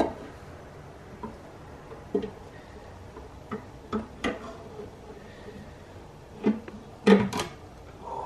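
Metal oil sump knocking and clacking against a Mazda 13B rotary engine as it is offered up and fitted: scattered single knocks, with a quick cluster of louder clanks about seven seconds in.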